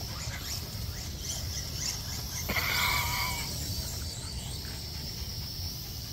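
High steady whine of a small drone's propellers overhead. About two and a half seconds in comes a click and then a high squeal lasting about a second, the loudest sound here.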